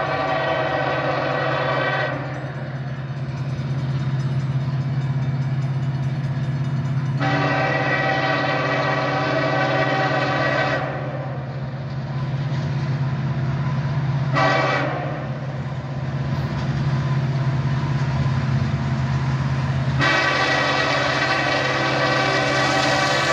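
Diesel locomotive air horn sounding the grade-crossing signal: two long blasts, one short, then a final long blast that is still sounding at the end, as the train approaches a crossing. A steady low rumble from the train runs underneath.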